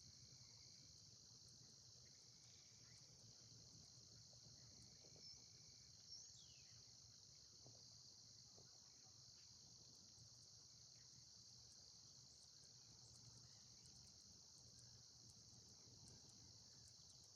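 Faint, steady, high-pitched chorus of insects such as crickets, with a few faint bird chirps in the first few seconds.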